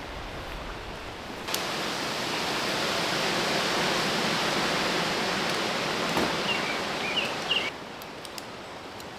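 A steady rushing noise that starts suddenly about a second and a half in and cuts off suddenly about six seconds later.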